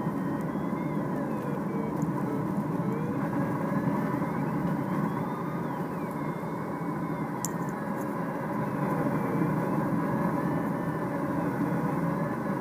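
Steady rush of air and engine drone inside a Duo Discus glider's cockpit while it is towed aloft behind a tow plane. Faint high tones waver slowly up and down over it.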